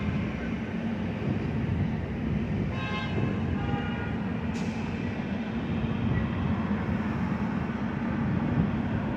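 Steady rumble of city avenue traffic, cars passing along the street, with a short high-pitched tone about three seconds in and a sharp click shortly after.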